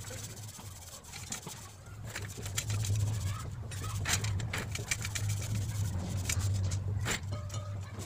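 A cloth rag rubbing back and forth along a rusty steel office-chair leg, giving a run of short scratchy wiping strokes. A steady low hum runs underneath, loudest in the middle.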